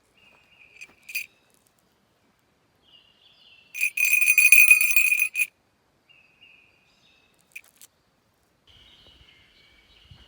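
Bear bell ringing: a few faint rings, then a loud, rapidly shaken jangle for about a second and a half midway, and one more short ring later.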